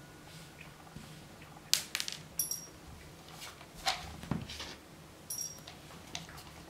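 Dry cat kibble dropped piece by piece into a ceramic cat bowl: sharp clicks and clinks in three bunches, some with a brief ring.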